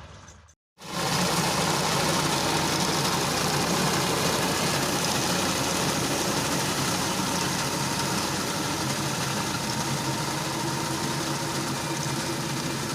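Tractor and reaper running steadily at harvest: an engine hum under a dense, loud mechanical rattle and hiss. It comes in abruptly about a second in after a brief silence.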